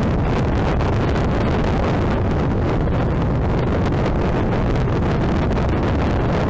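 Wind rushing over the microphone of a motorcycle riding at steady road speed, with the engine running underneath.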